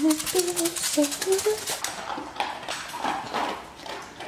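A domestic cat making several short rising meows and chirps in the first second or so, followed by quieter scattered sounds.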